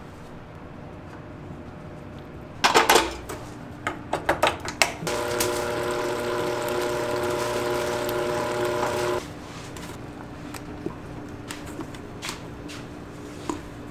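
Kitchen clatter of hard knocks, then a small electric motor runs steadily for about four seconds and cuts off suddenly, followed by a few light clicks.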